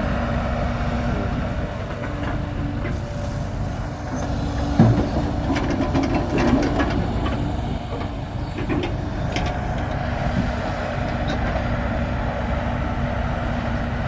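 Excavator's diesel engine running steadily while digging. A cluster of sharp metal clanks and knocks comes about five to seven seconds in, with the loudest near five seconds and another clank near ten seconds.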